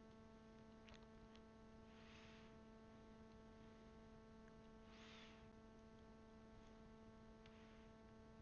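Near silence: a faint steady electrical hum, with a few faint ticks and soft hisses.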